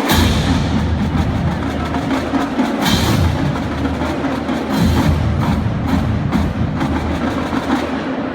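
Marching band drumline playing a cadence: rapid drum strokes throughout, with heavy bass drum hits and bright cymbal crashes at the start, about three seconds in and about five seconds in.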